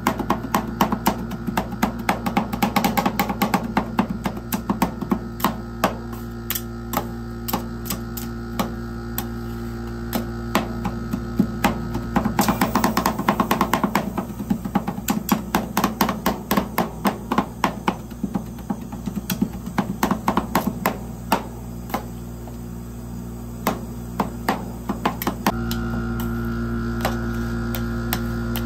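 Metal spatulas chopping and tapping on a frozen steel ice-cream-roll plate, working KitKat into the ice cream base: fast runs of sharp clicks with pauses between. A steady hum runs underneath and grows louder a few seconds before the end.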